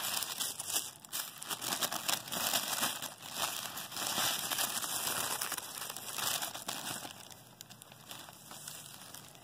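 Tissue paper wrapping crinkling and rustling as hands unwrap a gift. It quietens after about seven seconds.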